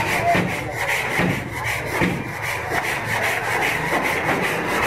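Repeated rubbing strokes on the steel body panel of a Suzuki Bolan van, about two to three strokes a second, as in body-shop hand work on a filler-patched panel.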